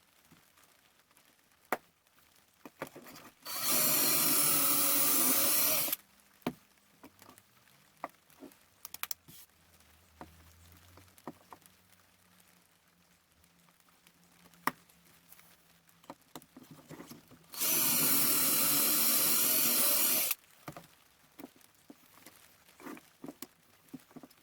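Power drill boring pocket holes into a wooden bracket: two runs of about two and a half seconds each, the second about fourteen seconds after the first. Scattered clicks and knocks of handling the wood and jig come between them.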